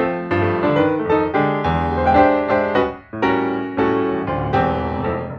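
Background music led by piano, with a bass line under the notes; it dips briefly about three seconds in and resumes.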